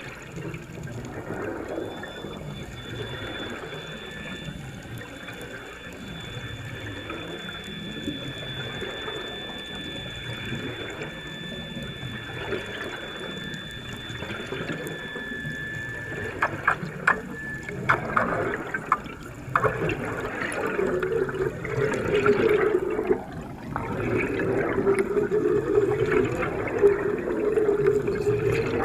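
Rushing, bubbling water, with a faint steady high tone through the first half. A run of clicks comes about two-thirds of the way in, and after that the water rush grows louder and denser.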